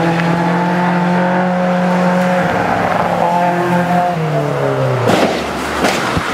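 Racing saloon car engine at full throttle, holding a high steady note, then dropping in pitch in steps as it passes and moves away. About five seconds in, its sound gives way to rough noise bursts.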